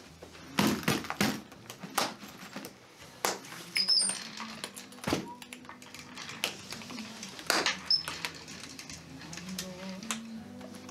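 Plastic ski boot buckles being clicked and clamped shut, a series of about a dozen sharp, irregular clicks and snaps.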